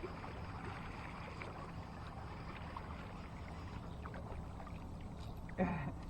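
Steady motor and water noise of a boat trolling slowly. Near the end comes one brief call that falls in pitch.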